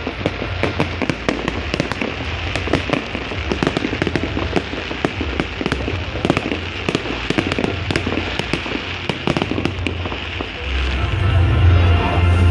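Fireworks crackling: a dense stream of sharp pops and snaps, many every second.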